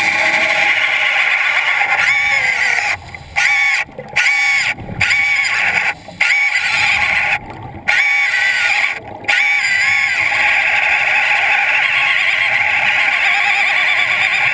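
Chainsaw engine running with a wavering buzzing pitch, broken by about half a dozen sudden short cut-outs in the middle.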